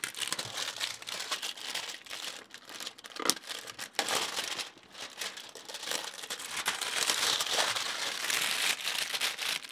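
Product-box packaging being torn open and unwrapped: steady crinkling with many scattered sharp crackles.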